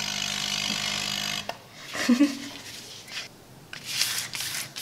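Small electric air pump running steadily, blowing air through a tube into a bubble of clear slime, cuts off suddenly about a second and a half in. Then hands press the slime flat, giving several short, soft rustling squishes.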